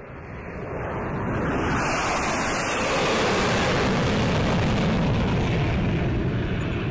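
Jet aircraft sound effect: a rushing noise that swells in over the first couple of seconds, then holds steady, with no tone or beat in it.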